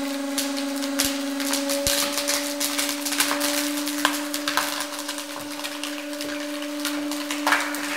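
Hydraulic press running with a steady hum while it crushes an X-lite motorcycle helmet. The helmet's shell and visor crack and snap in many irregular sharp clicks as the load builds.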